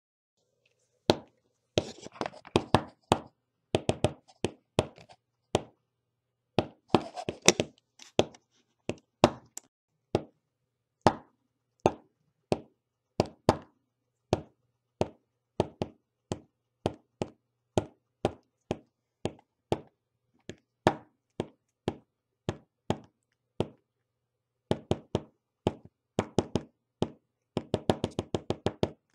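A long run of sharp knocks and taps serving as the gunfire sound effect for a battle between toy soldiers. They come singly about once a second, with quick rapid-fire clusters a couple of seconds in, around seven seconds, and a dense burst near the end.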